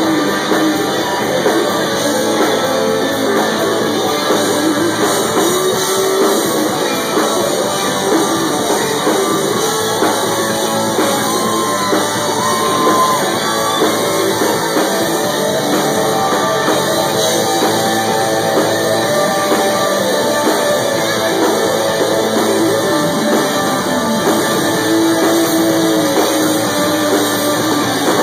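Live rock band playing an instrumental passage: an electric guitar leads, with bent notes, over drums and bass.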